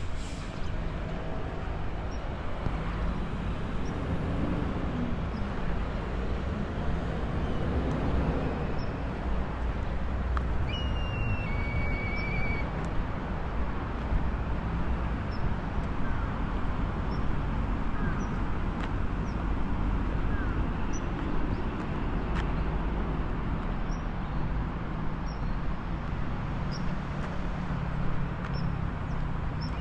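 Steady road traffic, with cars and other vehicles passing and swelling in and out. A few brief high chirps come about eleven to twelve seconds in.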